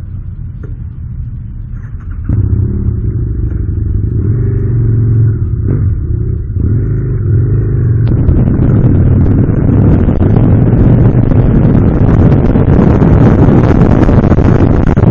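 Motorcycle engine running as the bike pulls away, getting louder about two seconds in. From about halfway through, wind rushing over the microphone builds with speed and drowns out most of the engine.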